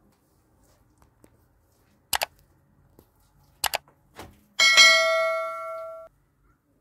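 Two sharp double knocks, then a metal object struck once and left ringing with a clear, bell-like tone for about a second and a half before it cuts off abruptly.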